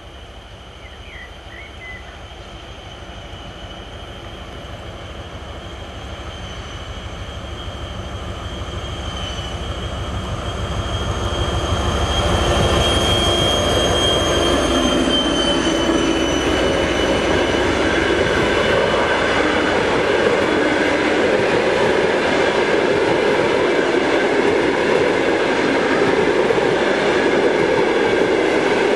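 TEP70K diesel passenger locomotive approaching and passing with its train, its diesel engine's deep rumble growing louder over about twelve seconds. The passenger coaches then roll past with a steady loud wheel-and-rail noise and clatter, while a high whine drops slightly in pitch around the middle.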